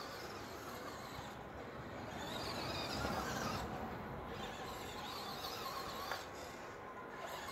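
Traxxas Rustler VXL radio-controlled truck's brushless electric motor whining and its tyres running over grass at a distance. It swells to its loudest about three seconds in.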